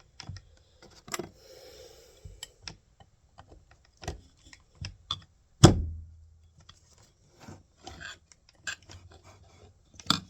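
Irregular clicks, taps and knocks of metal tools being handled, with one loud clunk a little past halfway.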